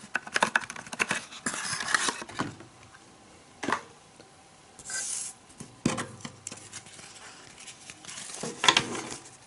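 A pack of baseball cards being torn open: quick crinkling and tearing of the wrapper for the first couple of seconds, a few separate clicks and scrapes, then a stack of cards rustling as it is handled near the end.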